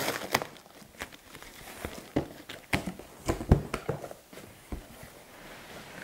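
Cardboard shipping box being opened: a box cutter slitting the tape, then the flaps pulled open, with a string of sharp cardboard knocks and scrapes, the loudest about three and a half seconds in, and a soft rustle of the packing near the end.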